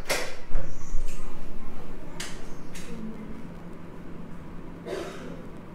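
Short rustling and scuffling noises from someone moving about out of view: a loud one at the start, another about two seconds in and a fainter one about five seconds in. A low steady hum runs underneath.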